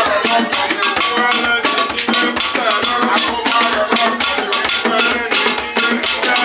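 Praise and worship music: voices singing over a steady, quick beat of drums and shaken and struck percussion.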